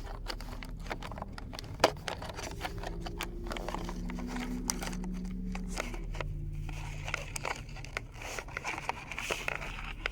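Scissors working at a plastic packaging strap on a toy box: repeated snips, scrapes and clicks of blade and plastic, with one sharp click about two seconds in. A faint low hum runs through the middle.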